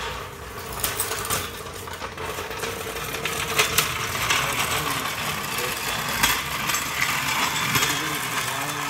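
Irregular metallic clinks and clicks, like hand tools and small parts being handled, over a steady hiss.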